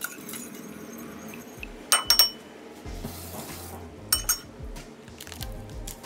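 Metal spoon clinking against a glass mixing bowl while stirring: a quick cluster of clinks about two seconds in and another pair about four seconds in.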